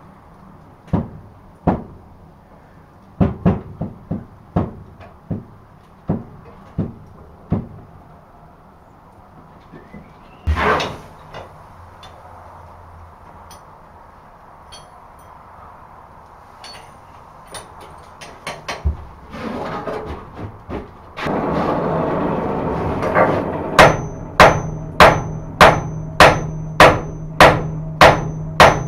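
Hand hammer striking glowing wrought iron and steel on an anvil during forge welding: scattered blows at first, a single heavy thud about ten seconds in, then, over a steady hum that comes in near the end, a fast even run of strikes about two a second, each with a high anvil ring.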